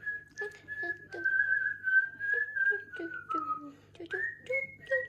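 A person whistling a melody, sliding between held notes.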